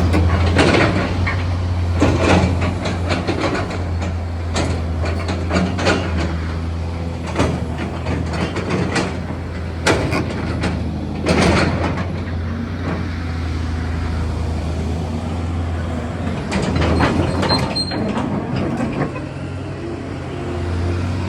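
Caterpillar 336D L hydraulic excavator's diesel engine running steadily, with irregular clanks and knocks from the machine as it works.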